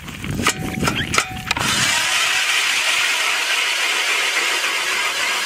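Ice auger boring a fishing hole through lake ice: a rough, uneven first second and a half with sharp clicks as the blades bite, then a steady hiss of the blades cutting and throwing ice chips.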